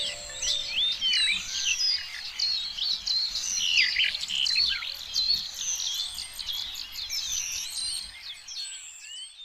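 Many small songbirds chirping and twittering at once in a dense, overlapping chorus. A faint background hiss under it drops out about eight and a half seconds in, and the chirps thin out near the end.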